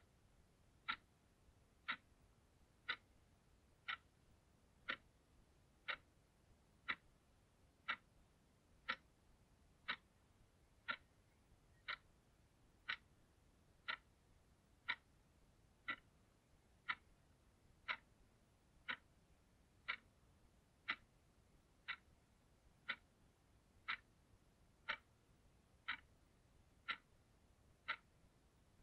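Small analogue alarm clock ticking steadily, one sharp tick each second.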